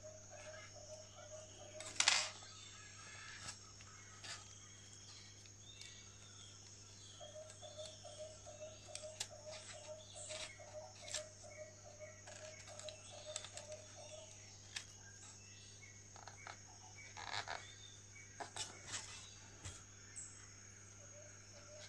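Faint clicks and light scrapes of fingers and insect pins handling a cicada's wing on a styrofoam spreading board, with one louder knock about two seconds in. Behind it a faint chirping, pulsing a few times a second, comes and goes.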